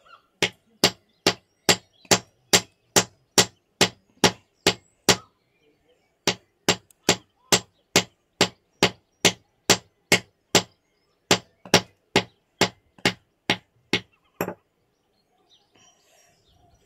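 Steel club hammer striking a fossil nodule held on a concrete floor, a steady run of sharp knocks about two a second as it is hammered to crack it open. The blows pause briefly about five seconds in, resume, and stop at about fourteen and a half seconds.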